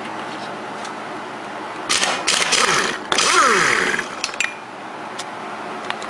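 Impact wrench hammering on a lawnmower engine's flywheel nut in two loud bursts from about two to four seconds in, its pitch falling as it spins down, as the nut breaks loose.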